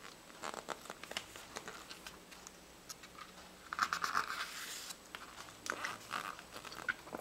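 A book's paper pages being handled and turned: light paper ticks and crinkles, with a louder rustle of a page turning about four seconds in and a shorter one near six seconds.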